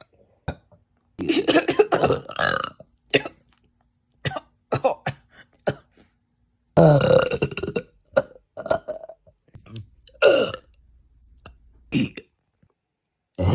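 A person burping loudly over and over. There are long, drawn-out burps about a second in and about seven seconds in, shorter ones later, and small throat clicks in between.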